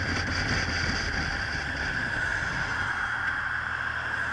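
Motorcycle engine running with wind noise, picked up by a camera mounted on the bike behind its windscreen as it slows for a turn. The low engine hum settles to a steadier tone about three seconds in.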